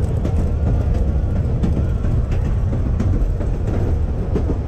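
Streetcar running along the track: a steady rumble of wheels on rail and motors, with a faint steady whine and scattered clicks.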